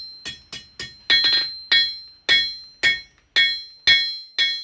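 Blacksmith's hand hammer striking an iron rod on a steel anvil block, about two blows a second. Each blow leaves a bright metallic ring.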